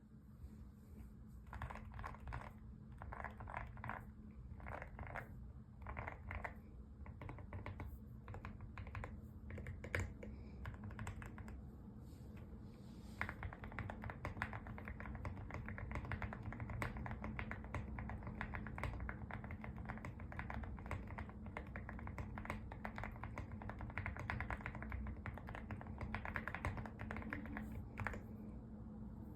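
Typing on a Lucky65 v2 mechanical keyboard with linear Gateron Milky Yellow Pro switches and MOA-profile keycaps: short bursts of keystrokes at first, then fast, continuous typing from about halfway through.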